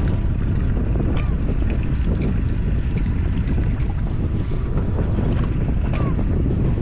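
Steady low rumble of wind buffeting the microphone on an open boat, with a few faint light clicks scattered through it.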